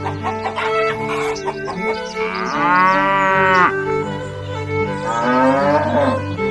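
Background music with two long calls laid over it, about two seconds in and again near the end, each rising and then falling in pitch; they sound like animal-call sound effects.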